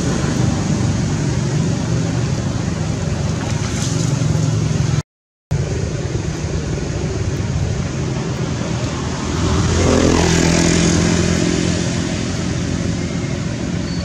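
Steady background noise with a low hum, like a motor running somewhere near. It cuts out completely for half a second about five seconds in and swells louder about ten seconds in.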